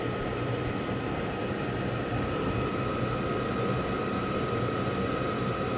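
Two-stage furnace running steadily on high fire: an even whir of the draft inducer, burners and blower with a thin steady high tone over it.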